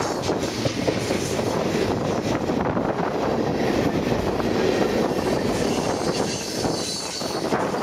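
Freight train tank cars and covered hoppers rolling past close by: a steady rumble of steel wheels on rail, with many quick knocks and clanks from the wheel trucks.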